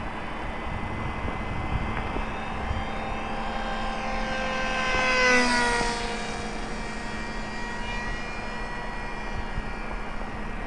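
Small electric RC plane's brushless motor and pusher propeller whining in flight. It grows louder as the plane flies past about halfway through, and the pitch drops as it goes by.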